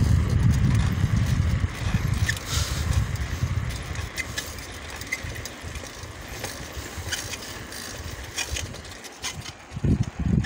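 Bicycle being ridden along a paved road: an uneven low rumble from the ride, heavy for the first couple of seconds and then easing, with scattered light clicks and rattles from the bike.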